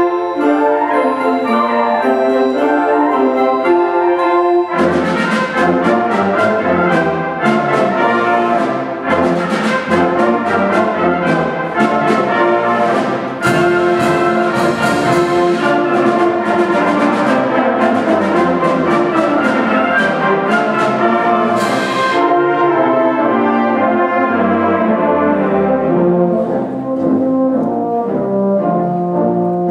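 Symphonic wind band playing, brass to the fore. About five seconds in the full band comes in with sharp accented strikes, which drop away after about twenty-two seconds into a softer, lighter passage.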